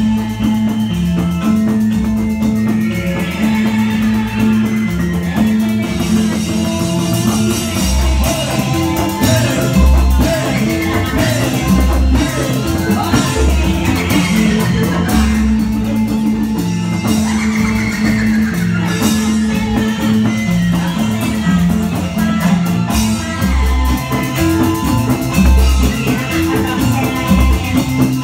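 Loud accompaniment music played through a large loudspeaker stack, with a repeating bass line and a steady beat. Deep bass hits land every few seconds.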